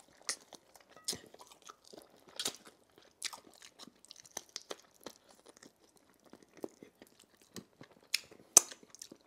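Close-up chewing and biting of chicken, with irregular wet crunches as the bones are gnawed; the loudest crunch comes near the end.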